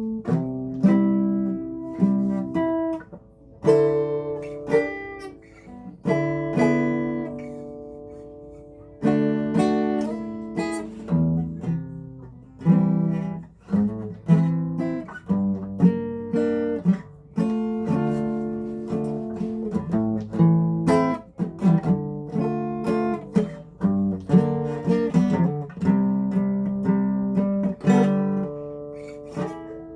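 Acoustic guitar music: chords strummed and picked, each ringing out before the next.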